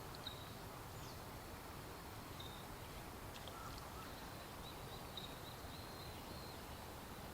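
Faint, thin, high call notes of small songbirds: a few scattered short notes, then a quick run of about eight in the second half, over a steady outdoor background hiss.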